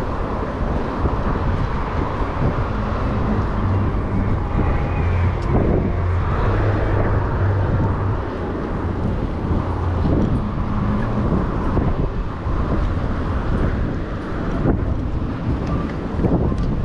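Traffic on the road alongside, cars running and passing, mixed with wind rumbling on the microphone of a moving bicycle.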